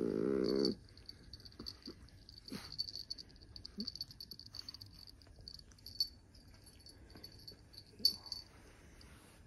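A small dog lying on its back having its belly rubbed. It gives a low, drawn-out moan of under a second at the start, then a few short soft grunts, over a fine crackling rustle of hands rubbing its fur.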